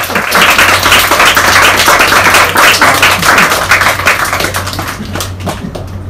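Live audience applauding: dense clapping that swells to full strength early on and tapers off near the end.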